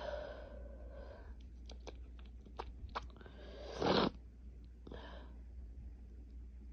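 A person with a head cold sneezing: a breathy exhale at the start, a few light clicks, then a sharp sneeze about four seconds in and a softer burst about a second later.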